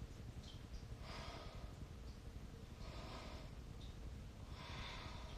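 A person breathing audibly through the nose during a held yoga twist: three soft breaths, about a second and a half apart.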